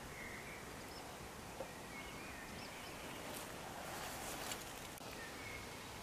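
Quiet countryside ambience: a steady hiss of air and leaves, with faint short bird chirps now and then and a couple of soft rustling clicks.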